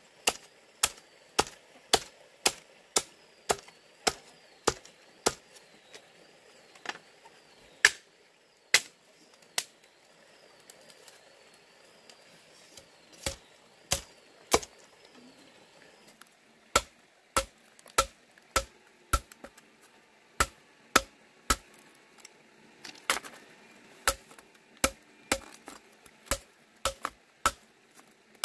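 Machete blade striking bamboo on a wooden log as split culms are chopped into strips. Sharp knocks come at about one to two a second, with a pause of a few seconds before the middle.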